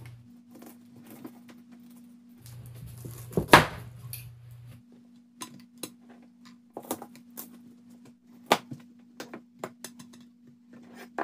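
Kitchen knife cutting corn on the cob on a plastic cutting board: a series of sharp knocks, the loudest about three and a half seconds in, over a faint steady hum.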